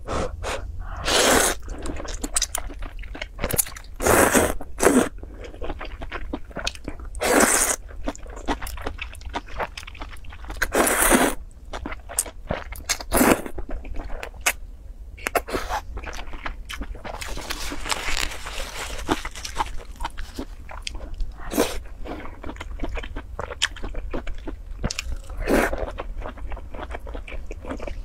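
Close-miked noodles being slurped in short loud bursts every few seconds, with chewing and wet mouth sounds in between.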